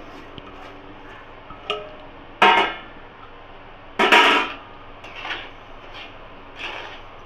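Metal spatula scraping and clanking against an aluminium pan as granulated sugar is stirred into thickened milk. Two loud scraping strokes come about two and a half and four seconds in, with a lighter clink before them and softer strokes after.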